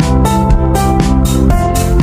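Electronic dance music with a steady fast beat, about four drum hits a second, over held synth notes.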